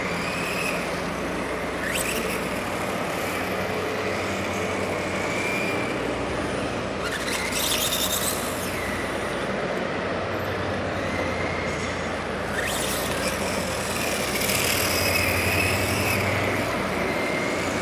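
Electric RC motorcycle's motor whining, its pitch rising and falling again and again with the throttle, over a steady low hum, with a few brief hissing rushes.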